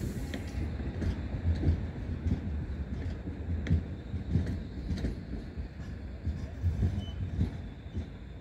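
Articulated tram rolling slowly along the loop track: a low rumble with scattered short clicks, easing slightly toward the end.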